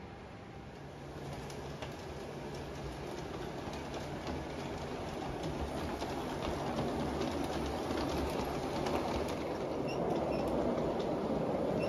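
G-scale LGB model train led by an Amtrak Genesis diesel rolling along the track. Its wheels rumble and click over the rail joints, and a steady low hum comes in about a second in. The sound grows steadily louder as the train approaches.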